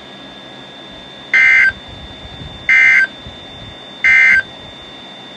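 Emergency Alert System end-of-message code: three short, loud bursts of SAME digital data tones, evenly spaced a little over a second apart, over a faint steady high tone from the radio feed.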